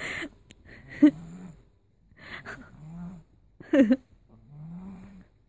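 A cat growling aggressively in three low, drawn-out rumbles as it attacks, broken by two louder, sharper cries.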